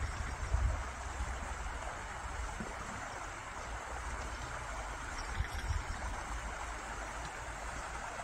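Small snowmelt stream flowing and babbling steadily over stones, with an uneven low rumble underneath that is strongest in the first second.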